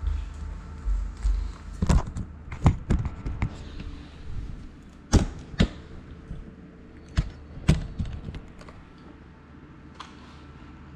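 Handling knocks and clicks on a small camera drone as it is picked up and bumped about: a low rumble in the first second or so, then a run of irregular sharp taps and thunks, loudest about five and eight seconds in, dying away near the end.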